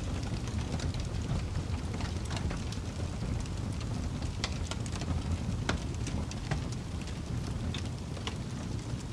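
Wood fire crackling: scattered irregular pops and snaps over a steady low rumble of the flames.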